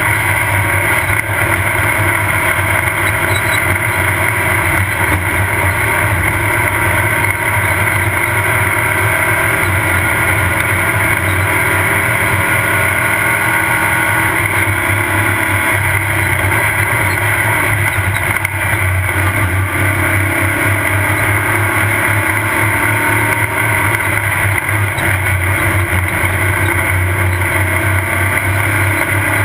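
Off-road race vehicle's engine running hard and steady at speed, heard from an on-board camera.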